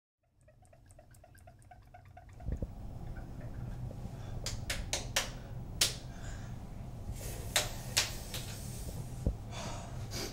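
Sharp clicks and knocks of small objects handled at a bathroom sink, about six of them, over a steady low hum that starts after a faint repeating ticking in the first two seconds.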